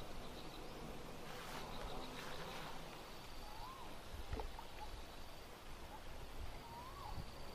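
Quiet pondside ambience: an insect trilling with a high, pulsing note, and short rising-and-falling bird calls every few seconds. A soft rustle comes about two seconds in, and a single click a little after four seconds.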